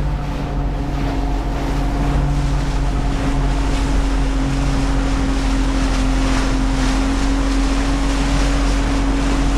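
Small motorboat's engine running at a steady pitch as the hull runs through choppy waves, with rushing water and spray and wind on the microphone.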